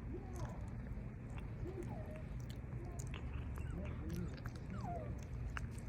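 A cat chewing its food: irregular small crunching clicks, over a steady low background rumble and a few faint short chirp-like tones.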